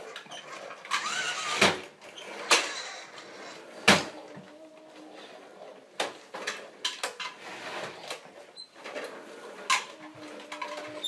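Plastic toy trucks knocking and clattering on a wooden floor as they are handled, a string of irregular sharp knocks with a few louder ones in the first four seconds.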